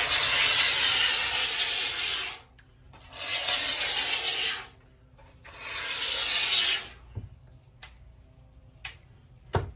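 Can of Great Stuff Gaps & Cracks expanding foam hissing as it sprays, in three spurts of about two seconds each. A couple of short knocks follow near the end.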